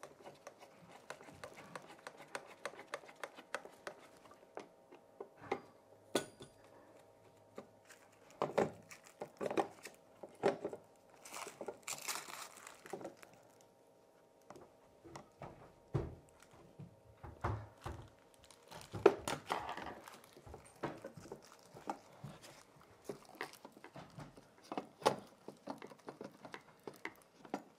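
Scattered small clicks, taps and scrapes of a screwdriver and a floor outlet box and its cover being handled and fitted into a wooden floor, with a few louder knocks and two short bouts of scraping.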